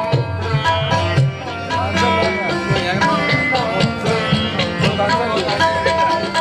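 Roland Fantom X6 keyboard playing a sliding Indian-style melody over tabla drumming.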